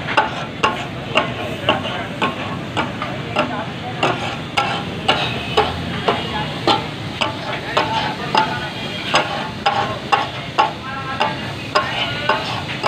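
Metal spatulas clanging as they chop and toss mixed kata-kat (tak-a-tak) on a large flat iron griddle, in an irregular beat of about two strikes a second over the sizzle of frying meat. This rhythmic clatter is the sound the dish is named for.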